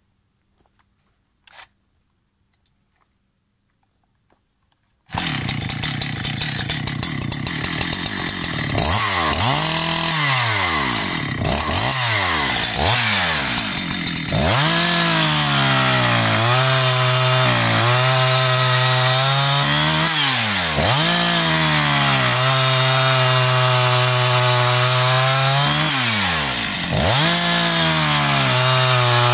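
Husqvarna 371XP two-stroke chainsaw, a modified 371K. Near silence for about five seconds, then it starts and is revved up and down several times before settling into a steady high-speed run with brief dips in speed.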